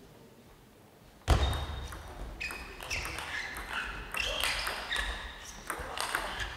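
Near silence, then about a second in a table tennis rally starts suddenly. The celluloid ball clicks repeatedly off the bats and table, with short high squeaks of rubber-soled shoes on the hall floor.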